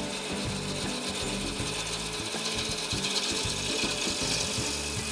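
Deep U-flute gouge cutting a fiddleback maple blank spinning on a wood lathe: a steady, even scraping rush as the tool shears off a continuous stream of shavings.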